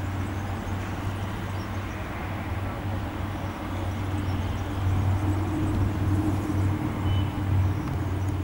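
Dassault Falcon 7X business jet's three turbofan engines running at taxi power, a steady low drone with a jet rush that grows louder from about halfway through.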